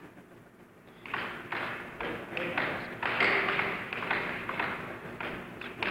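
Air hockey puck being struck by mallets and banging off the table rails in a fast rally: an irregular run of sharp knocks, several a second, starting about a second in.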